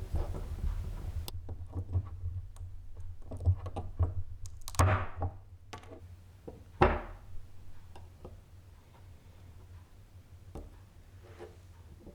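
Light knocks, taps and thunks of objects being handled, with two louder sounds about five and seven seconds in that sweep down in pitch.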